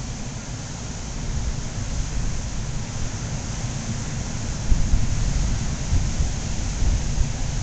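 Strong wind buffeting the microphone, an uneven low rumble with louder gusts around the middle and near the end, over the steady hiss of breaking surf.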